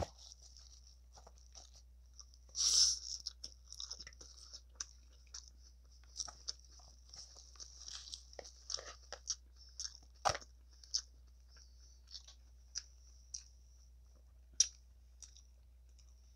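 Fork stirring and tossing a salad of crisp lettuce and croutons in a bowl: crisp crackling and crunching with scattered sharp clicks of the fork on the bowl. The crackling is loudest about three seconds in, and there is a single sharp click about ten seconds in.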